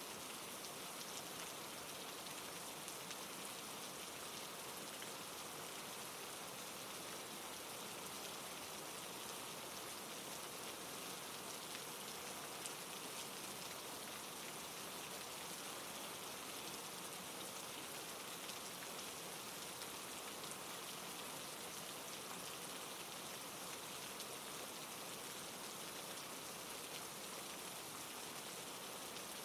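Steady rain falling, an even patter of raindrops that does not let up or change.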